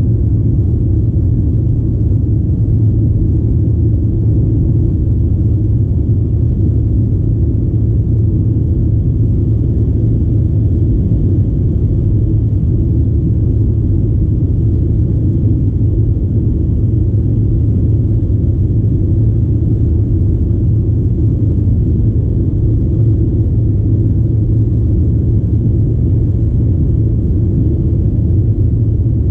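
Steady low rumble of an Avro RJ85 in flight, heard inside the cabin: the drone of its four Honeywell LF507 turbofan engines mixed with airflow noise, holding even throughout.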